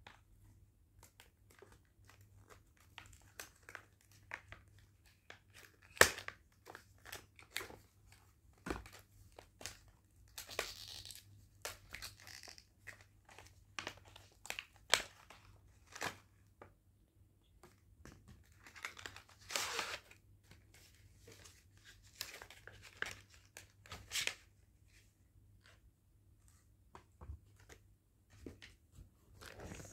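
Small cardboard boxes and plastic packaging being handled and opened: scattered sharp clicks and taps of cardboard, with a few short spells of tearing and crinkling.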